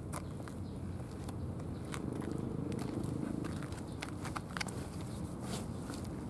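A cat eating wet cat food from a plastic tray: irregular small chewing and smacking clicks over a steady low rumble.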